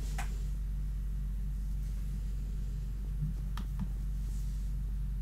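Steady low hum with a few faint clicks: one near the start and two close together past the middle.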